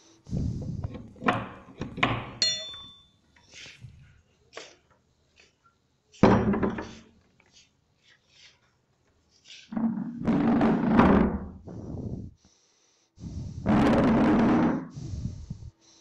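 A series of irregular thuds and knocks, bursts of noise several seconds apart, the longest lasting about a second and a half near the end.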